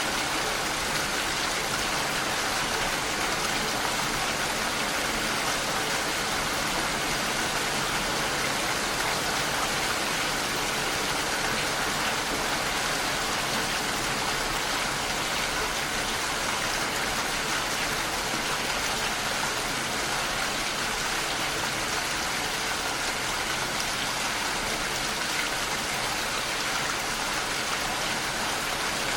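Steady, even rain falling, a continuous hiss with no distinct drops or thunder.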